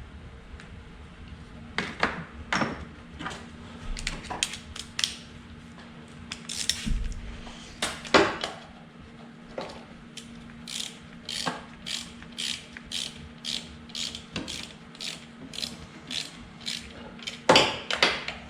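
Hand ratchet wrench clicking as bolts are tightened, in irregular clicks at first and then a steady run of about two to three clicks a second, with a louder knock near the end.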